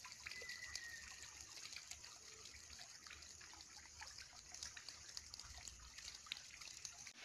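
Near silence: faint outdoor ambience with scattered small ticks and one brief faint whistle about half a second in.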